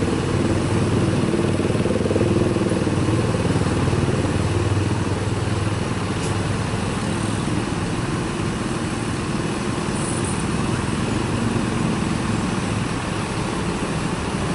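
Slow-moving jammed road traffic: motorcycle, car and bus engines running and idling as they crawl past, with a steady engine hum that is strongest in the first few seconds.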